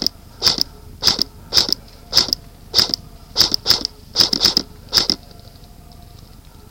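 Crunching footsteps at a walking pace, about two steps a second, stopping about five seconds in.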